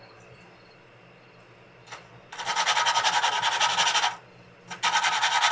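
A Tecumseh flathead engine's valve being lapped into its seat, the suction-cup stick spun back and forth between the palms. The valve grinding compound makes a gritty, rasping scrape between valve and seat. About two seconds in come two bouts of loud grinding with a short pause between them, coarse because the compound is still cutting and the seat is not yet lapped smooth.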